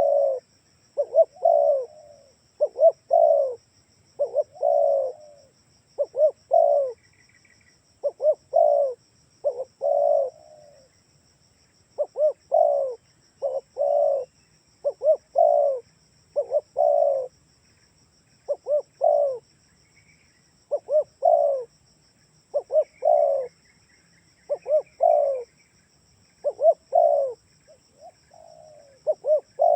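Spotted dove (tekukur) cooing over and over, one phrase about every two seconds: a couple of short coos followed by a longer one. A few faint chirps of a small bird come in now and then.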